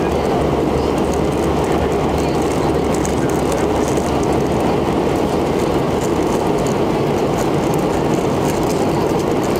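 Cabin noise inside a McDonnell Douglas MD-88 airliner in flight: a loud, steady rush of airflow mixed with the low hum of its rear-mounted Pratt & Whitney JT8D turbofan engines, even and unchanging throughout.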